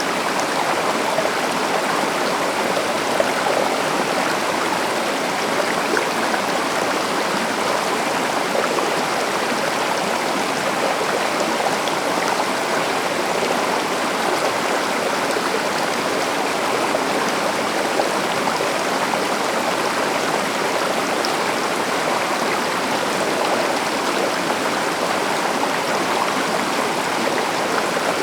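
A forest stream or small river running steadily over rocks, a continuous rushing and babbling of water.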